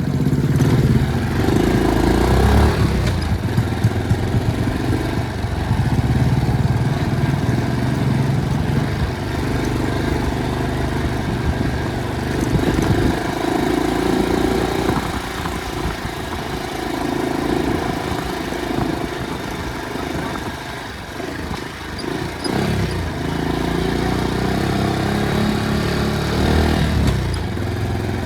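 Motorcycle engine running under way, its pitch rising and falling repeatedly with throttle changes.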